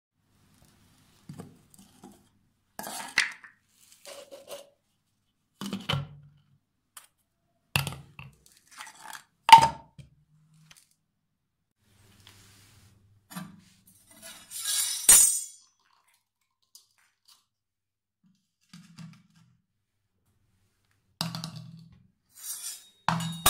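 A stainless steel floor-drain grate and a plastic drain funnel being handled on tile: scattered metal clinks and knocks, with one short scrape about two-thirds of the way through.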